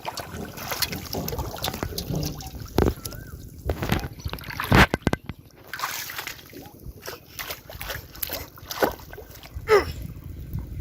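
Pond water sloshing and splashing, with a series of sharp splashes, the strongest about halfway through.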